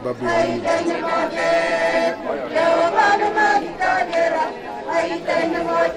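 Many voices singing together, a choir-like group of men and women.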